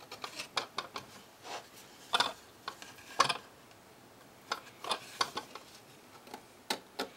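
Irregular small clicks and taps of a screw and square nut being handled and fitted by hand into a laser-cut servo mount, a couple of them louder than the rest.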